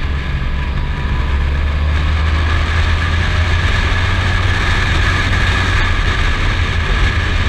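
Touring motorcycle riding along at a steady engine speed: a steady low engine drone under the hiss of wind rushing over the microphone.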